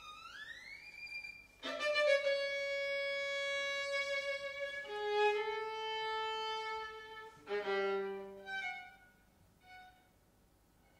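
Solo violin playing: a high note slides upward, then loud held chords of two notes at once begin with a sharp attack about two seconds in. The notes shift, another accented chord comes about seven and a half seconds in, and the playing dies away in a few short, quieter notes near the end.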